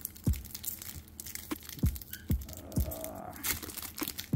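Foil wrapper of a Pokémon TCG booster pack being torn open and crinkled by hand: irregular crackling rips, with several dull low knocks of handling.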